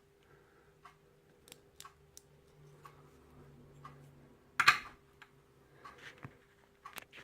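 Small metal clicks and taps of a padlock's removable core being taken apart with a plug follower, with one much louder clack a little past halfway.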